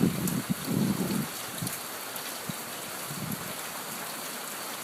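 Hard tropical rain falling steadily, an even hiss, with a louder low rumble for about the first second.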